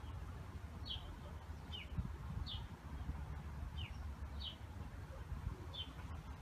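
A small songbird calling: six short, sharp chirps, each sliding down in pitch, spaced roughly a second apart, over a low steady rumble.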